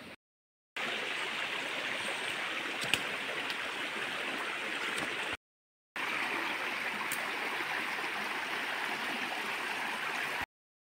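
Stream water running over rocks, a steady rush, broken twice by brief dropouts to silence. One sharp click about three seconds in.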